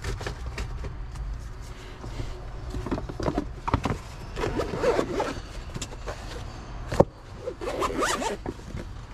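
A zipper on a bag pulled in two strokes, about 4.5 and 8 seconds in, among clicks and knocks of handling, with a sharp click just before the second stroke. A steady low hum runs underneath.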